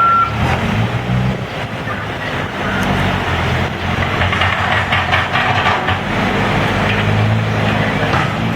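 Diesel engine of a Case 590 Super N backhoe working, its pitch rising and falling with the load. Rattling clatter about three to five seconds in, with one brief high beep right at the start.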